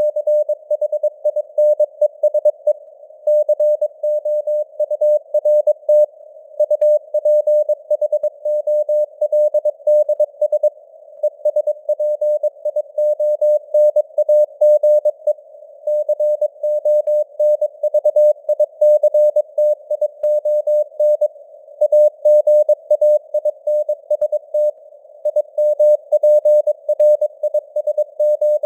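Morse code at 22 words per minute: a single steady beep keyed on and off in quick dots and dashes, like a CW radio signal, over a narrow band of simulated radio hiss. The signal strength rises and falls a little as it fades (QSB).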